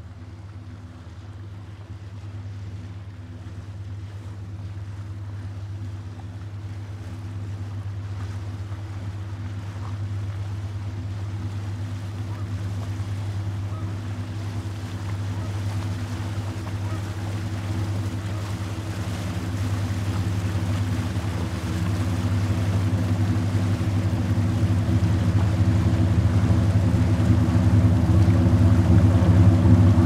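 Racing hydroplane's engine: a steady, even-pitched drone that grows steadily louder as the boat approaches.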